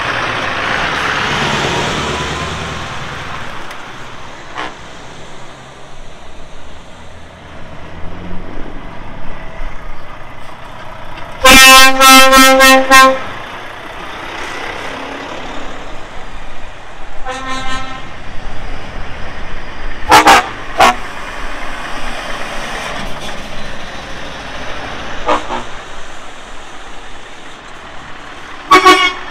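Lorries driving past with their horns sounding. The loudest is a blast of about a second and a half roughly twelve seconds in, ending in quick toots, and several shorter toots follow.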